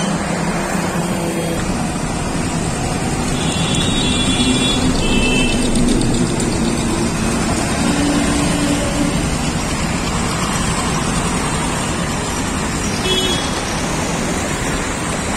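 Steady noise of nearby road traffic, with short horn toots about four seconds in and again near the end.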